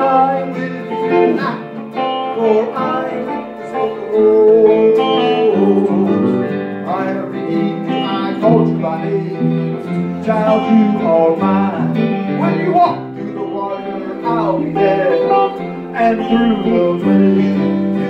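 Live worship song: an electric guitar plays along with a hymn being sung, with held notes under the voice.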